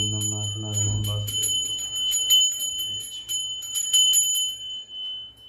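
Small brass puja hand bell rung rapidly and steadily, several strikes a second, with a bright ringing tone. It stops shortly before the end.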